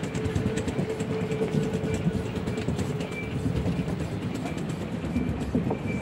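Wheelchair wheels rolling over a wooden plank deck, a continuous clattering rattle of many small knocks as they cross the boards.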